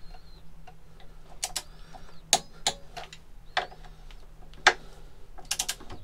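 Ratcheting torque wrench clicking in short, irregularly spaced single clicks as a motorcycle front brake caliper mounting bolt is wound in and tightened toward 27 newton metres. The loudest click comes near the end.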